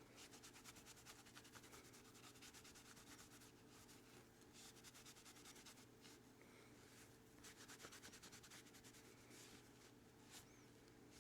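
Faint, quick back-and-forth rubbing of a microfiber cloth buffing wax off a pocketknife's micarta covers.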